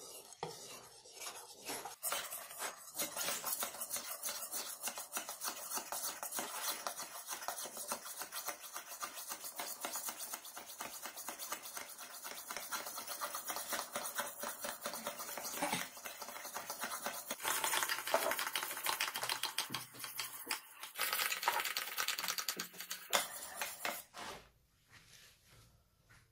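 Butcher's chopper blade being sharpened on a wet whetstone: rapid back-and-forth scraping strokes of steel on stone. They start about two seconds in and stop a couple of seconds before the end.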